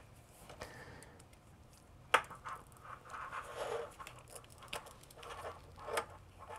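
Hand wire strippers working at the jacket of a thin shielded cable: faint scraping and rustling, with a sharp click about two seconds in and another near the end.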